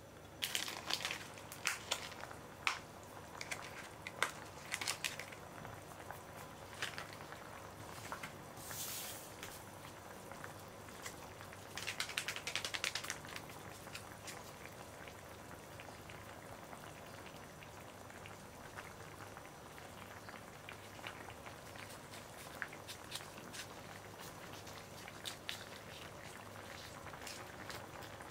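Broth of chicken, carrot and burdock simmering in a frying pan: a steady faint bubbling crackle. Scattered clicks and pops come in the first few seconds, and a denser patch of crackling about twelve seconds in.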